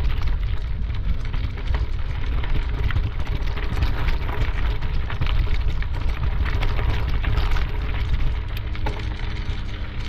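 Wind rumbling on the microphone of a camera carried by a runner, with footsteps crunching on a gravel trail and the camera jostling.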